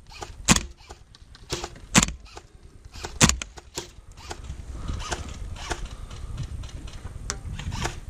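Airsoft rifle firing single shots: three sharp cracks about a second and a half apart in the first few seconds, then fainter scattered clicks.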